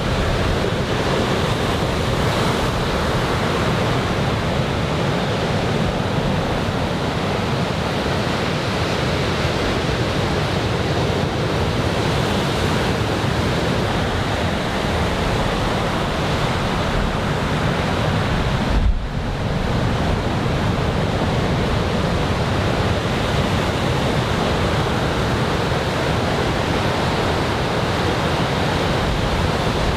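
Heavy surf from a typhoon swell: waves breaking and washing ashore in a steady, continuous rush, with wind on the microphone adding a low rumble. A short break in the sound comes about nineteen seconds in.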